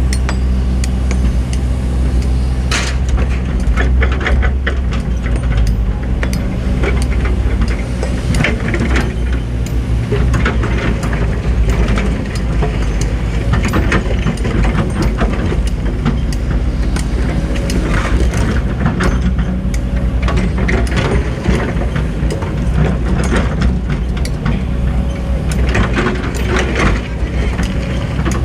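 Hydraulic excavator's diesel engine running steadily under load, with frequent short knocks and clanks from the machine at work.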